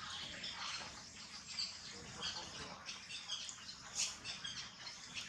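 Faint outdoor ambience: scattered short, high chirps and squeaks over soft rustling, with a sharp click about four seconds in.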